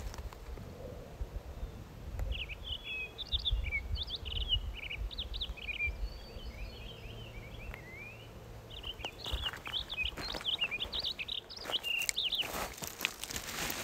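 A small songbird singing two runs of quick, varied chirps. Near the end, footsteps crunch on loose rock.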